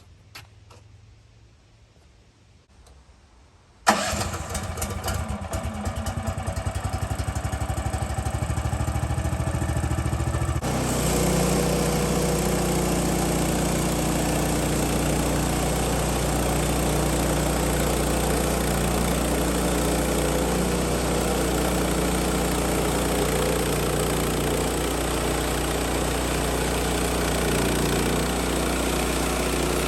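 An engine starts with a sudden onset about four seconds in and runs with a quick, even pulsing. At about eleven seconds it changes to a steadier, fuller run that holds to the end.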